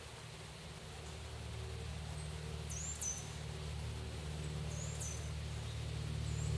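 A bird chirps high and short, in two quick pairs, over a steady low hum.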